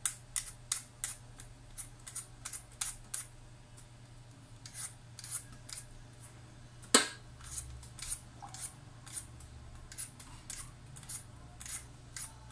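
A vegetable peeler scraping strips of skin off a raw potato in quick strokes, about three a second, with short breaks. A single sharp knock about seven seconds in is the loudest sound.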